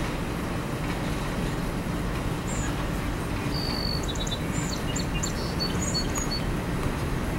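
Freight train coal hoppers rolling slowly past, with the steady rumble of their steel wheels on the rails. Birds chirp briefly several times about halfway through.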